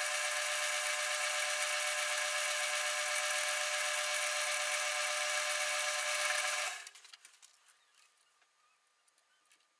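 South Bend lathe running steadily with an even whine. About two-thirds of the way through it is shut off and spins down to near silence.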